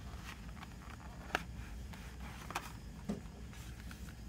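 Hands handling a CD case and its paper lyric booklet: soft rustling with a few light clicks and taps, the sharpest about a second in and again about two and a half seconds in, over a steady low hum.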